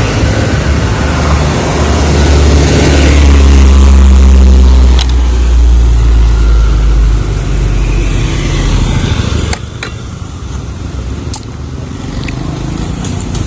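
Road traffic going by close: a passing vehicle's engine drone, loudest a few seconds in, its pitch falling as it goes past, then fading. A few light knocks, and the traffic noise is much quieter after about nine and a half seconds.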